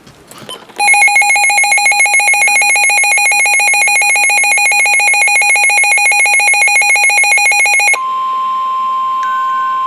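Several NOAA weather radio receivers sounding their alert alarms together, a loud rapid pulsing beep of several high tones, which stops abruptly about eight seconds in. A steady single tone near 1 kHz follows: the broadcast warning alarm tone that comes before a new severe thunderstorm warning is read.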